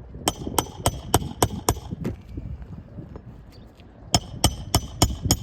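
Hammer blows on a shingle roof in two quick runs, about three or four sharp strikes a second: six early on, a pause, then five more near the end.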